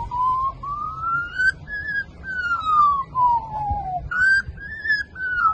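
Australian magpie mimicking a fire engine siren: a clear whistled wail that slowly rises, then falls, twice over.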